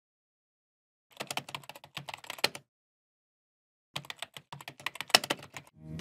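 Keyboard typing sound effect: two runs of quick key clicks, each about a second and a half long, with silence between them. It goes with on-screen text being typed out.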